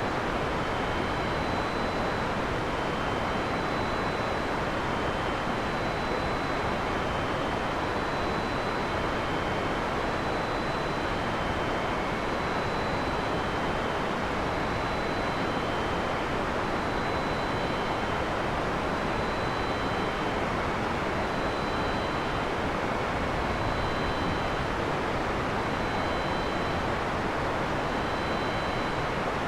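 Steady heavy rain falling in a forest, an even hiss with no thunder. Faint high chirps repeat every second or two.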